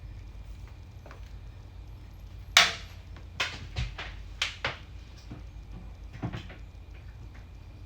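Handling noise: a series of sharp clacks and knocks from objects being moved about, the loudest about two and a half seconds in, then four quicker ones over the next two seconds and a weaker one near six seconds.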